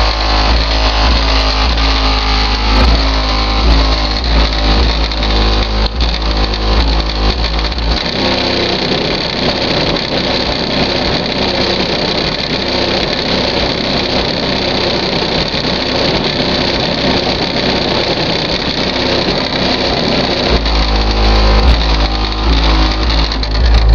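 A rap song plays through new Orion HCCA car-audio subwoofers in a van, the subs being broken in, with heavy deep bass. The bass drops out for a stretch in the middle and comes back in near the end.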